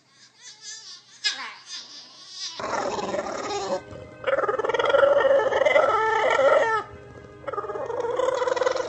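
A dog vocalising: a few short whines falling in pitch, then three long drawn-out howls starting about two and a half seconds in, the middle one the longest and loudest.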